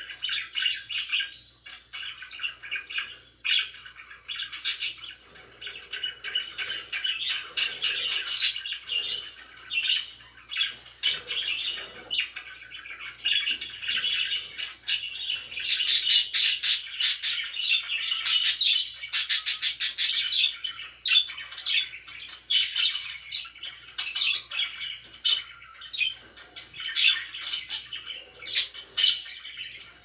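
Pet budgerigars chirping and chattering in a cage, a continuous run of warbling calls and squawks, loudest and fastest a little past halfway.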